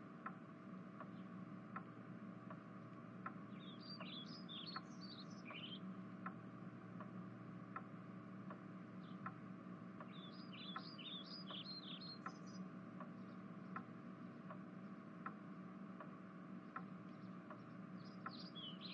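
Faint bird chirping in three short flurries of quick high notes over a steady low hum, with a regular tick about every three-quarters of a second throughout.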